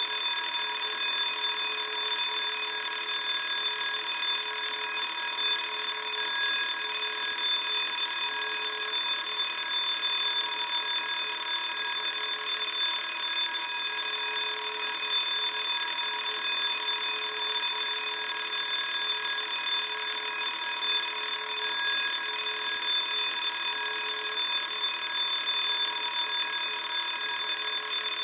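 Classic electric school bell ringing steadily without a break.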